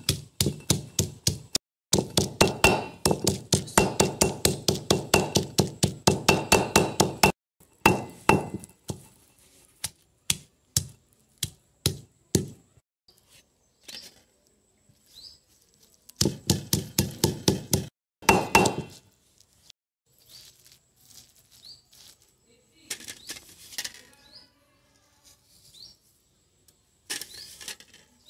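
Stone pestle pounding roselle flowers on a flat stone grinding slab: runs of quick knocks, about five a second, broken by short pauses. Near the end come softer, scattered scraping and crushing sounds as herbs and spices are worked into the paste.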